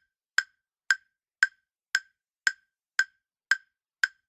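Quiz countdown-timer sound effect: short, identical wood-block-like ticks, evenly spaced at about two a second.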